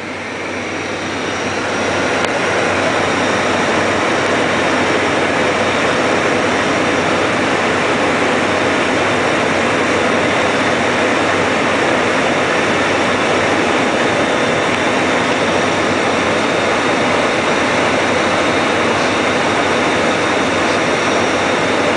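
Steady cockpit noise of an airliner on final approach: airflow and engine noise on the flight deck, building over the first two seconds and then holding even.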